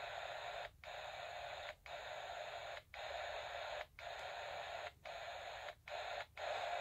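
Static hiss from a Midland 40-channel handheld CB radio's speaker as it is stepped up channel by channel, the hiss cutting out briefly about once a second at each channel change. No station is heard on these channels.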